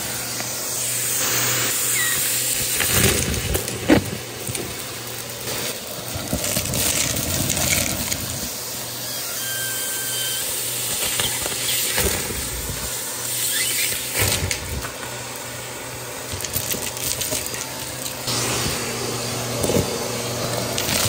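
Handheld vacuum with a brush nozzle running steadily, its motor humming, while small hard pieces (plastic tiles, buttons, metal pull tabs) clatter and rattle against the brush, the plastic tub and up the nozzle as it sweeps through them.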